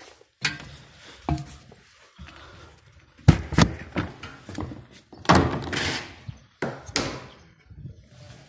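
Irregular thuds and knocks of hollow plastic as a sprayer's plastic tank and its filler lid are handled: about half a dozen hits, the loudest a little past three seconds and about five seconds in, with scraping between them.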